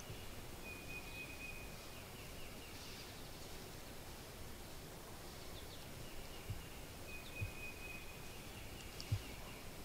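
Quiet woodland background with a high, even trill that recurs several times. Three soft low thumps come in the second half.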